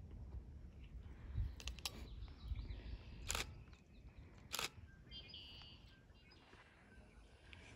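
Quiet outdoor ambience with a low wind rumble on the microphone for the first few seconds, several sharp clicks of unclear source (the loudest two about three and four and a half seconds in), and a brief bird chirp about five seconds in.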